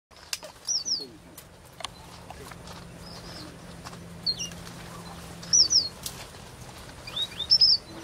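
Male red avadavat giving short, high-pitched chirps, mostly in quick pairs, about every one to two seconds, the loudest near the middle and near the end. A few sharp clicks and a faint low hum lie beneath.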